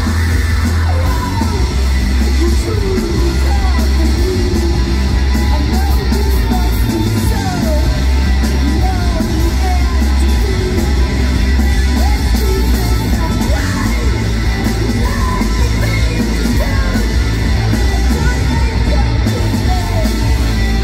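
Live rock band playing loud, with electric guitars and drums under yelled vocals.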